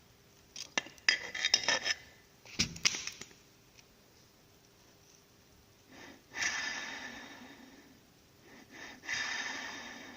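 Metal clicks and knocks from a Subaru Outback 5-speed manual transfer case being handled. Then come two rushing, rough noises that start suddenly and fade over a second or so, from the case's suspect rear centre-differential bearing.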